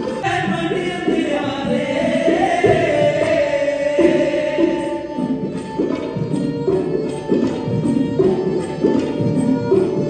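Sikh kirtan: a voice sings a long held line over tabla, with string accompaniment.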